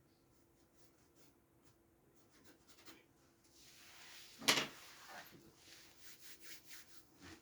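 Rubbing and scraping strokes on a surface while art materials are handled, with one sharp knock about halfway through, then a quick run of short strokes.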